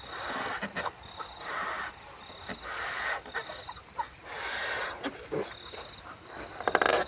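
A rubber balloon being filled with air: short bursts of air hiss about once a second, with small squeaks of the stretching rubber. A quick run of sharp clicks near the end is the loudest part.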